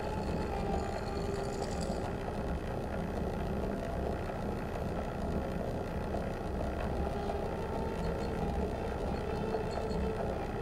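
Steady, low rumbling noise drone from a live electroacoustic improvisation with trumpet, sonified body signals and sound objects, with faint held tones in it and a faint high rising whistle about a second in.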